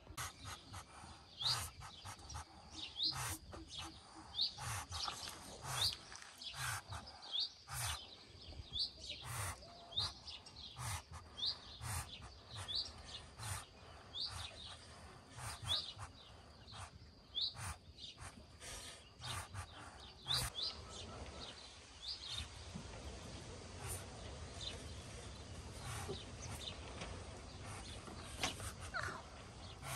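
Ducklings peeping from under a brooding Muscovy duck hen: short, high, rising peeps about once a second that die away about two-thirds of the way through. Scattered clicks and rustling run underneath.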